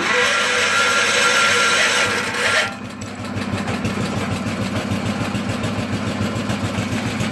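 Wheel Horse garden tractor engine started cold on choke. A loud burst of starting noise lasts about two and a half seconds, then the engine settles into a steady, even run.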